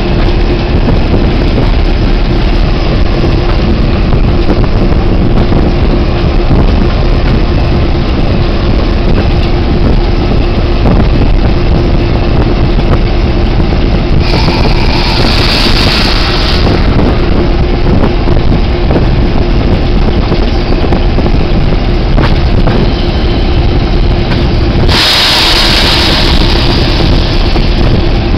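Diesel locomotive running along the track, a loud steady engine drone with a constant hum. Two bursts of hiss cut in, one about halfway through and one near the end.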